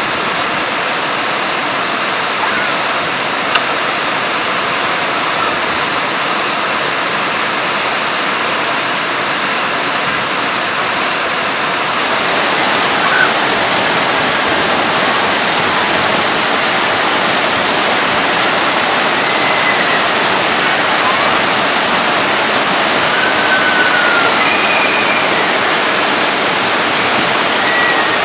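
Waterfall water rushing in a steady roar, growing louder about twelve seconds in. A few faint short whistles sound over it in the second half.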